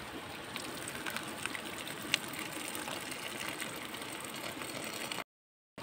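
Wet rice and water pouring from a clay pot into a woven bamboo basket, against a steady rush of running stream water, with small clicks and one sharper click about two seconds in. The sound breaks off abruptly near the end.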